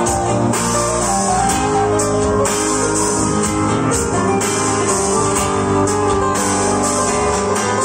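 Live band playing amplified through a PA: electric and acoustic guitars over drums, with cymbals keeping a steady beat.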